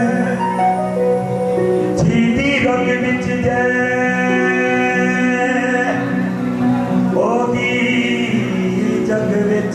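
Live music: a man singing long held notes over instrumental accompaniment.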